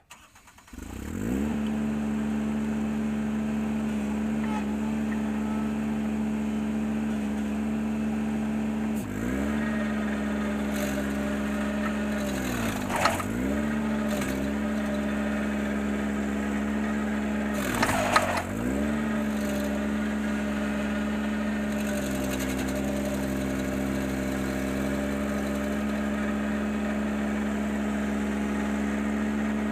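Ventrac 4520Z tractor engine driving a stump grinder: it comes up to speed about a second in, then runs steadily. Its pitch sags and recovers three times, the two deepest sags with sharp cracks, as the grinder bites into wood.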